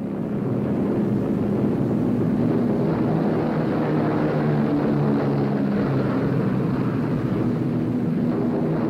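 Propeller-driven B-17 Flying Fortress bombers droning steadily in flight. The radial piston engines make an even, low multi-tone hum that holds constant throughout.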